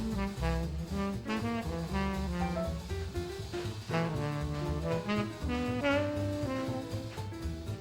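Upbeat jazz music with saxophone and brass over a walking bass and drums.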